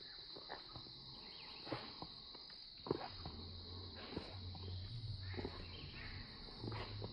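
Steady high-pitched insect drone of crickets or cicadas, with scattered sharp clicks and a low hum in the middle of the stretch.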